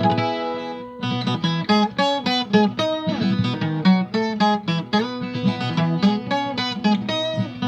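Brazilian viola caipira, the ten-string folk guitar, playing a solo instrumental introduction: a chord rings out at the start, then about a second in a run of quick picked notes and chords follows.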